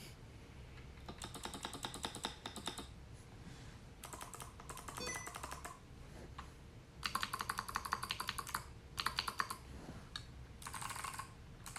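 Mechanical keyboard with Kailh Box White V2 clicky switches being typed on in about five quick bursts of keystrokes, with short pauses between them. Each press gives the switch's sharp click.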